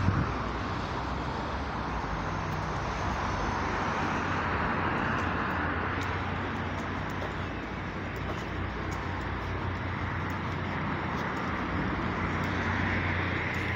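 Steady traffic noise on a town street: a low, even engine hum under a broad rush of road and wind noise.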